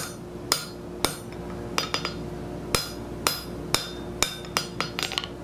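Hand hammer striking a hot steel bar on an anvil, drawing it down to square: about a dozen ringing blows at an uneven pace, with a quick run of lighter strikes near the end.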